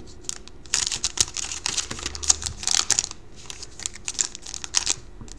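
Scissors snipping open a foil trading-card pack, the wrapper crinkling in several short bursts of crisp clicks and rustle.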